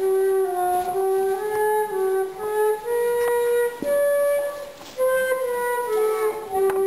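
A solo wind instrument playing a slow melody, one held note at a time.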